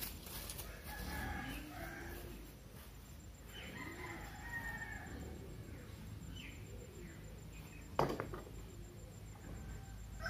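Chickens clucking and a rooster crowing, in short scattered calls, with a single sharp knock about eight seconds in.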